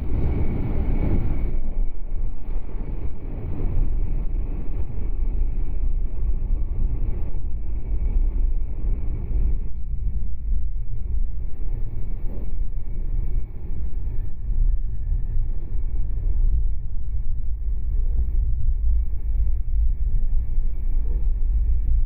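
Running noise heard inside a Meitetsu electric train car at speed: a steady low rumble of wheels on rail, a little fuller for the first two seconds.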